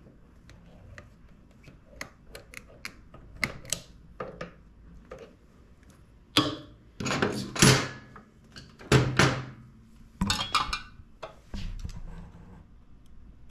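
Hand tools and parts clicking, knocking and scraping as a stuck part on a small quad is poked and pried loose, with a run of louder knocks and scrapes from about six to eleven seconds in.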